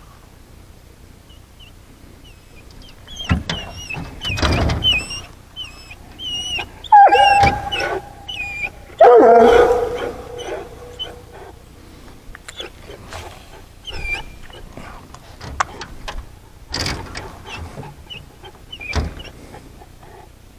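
A dog whining in a run of short, high, wavering notes, then giving two loud, drawn-out howling cries in the middle, with scattered knocks around them.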